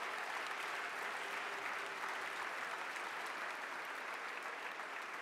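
An audience applauding: many people clapping together in a steady round of applause.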